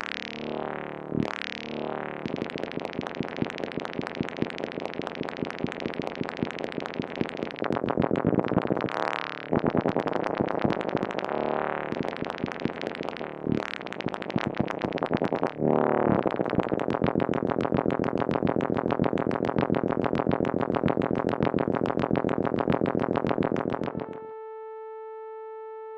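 Moog Mother-32 analog synthesizer under chaotic modulation from an analog computer: rapid stuttering pulses with filter sweeps rising and falling. About 24 seconds in it cuts abruptly to a steady held tone.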